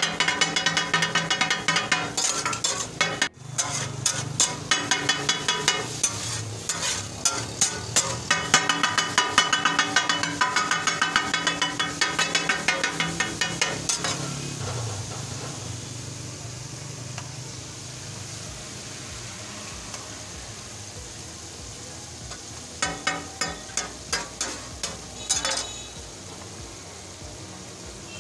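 Two flat metal spatulas chopping and scraping rapidly on a hot griddle (tawa) in a fast, even clatter, over the sizzle of frying masala. About halfway through the chopping stops and only a steady sizzle remains, until another short flurry of strikes near the end.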